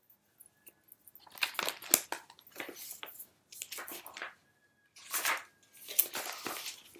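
Paper rustling and scraping as an open picture book is handled and its pages turned: a string of irregular crinkles and rubs, strongest about two seconds in and again near the end.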